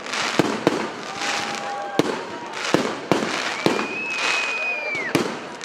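Aerial fireworks display: about seven sharp bangs of shells bursting, irregularly spaced, over continuous crackling. A long, high, steady whistle runs through the second half and drops away near the end.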